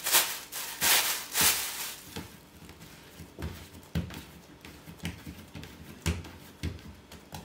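Thin plastic bag crinkling and rustling as it is pulled off a ball of dough, loudest in the first second and a half. Then a few soft, dull knocks as the dough is handled and set down on the countertop.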